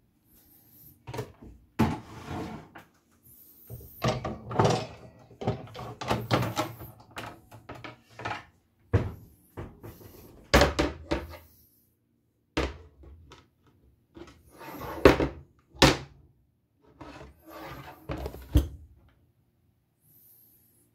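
Irregular knocks, thuds and rustling from things being handled, with a handful of sharper clicks standing out.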